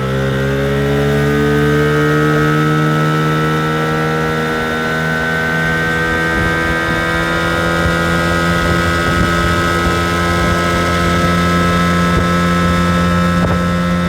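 1980 Evinrude 15 hp two-cylinder two-stroke outboard motor running hard at full throttle after a hole-shot acceleration. Its pitch creeps up a little in the first seconds, then holds high and steady.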